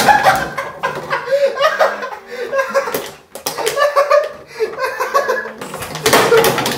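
A young man laughing hard in repeated bouts, with a short lull midway. Sharp clicks and clatters run through it from the empty plastic water bottles he is lying and moving in.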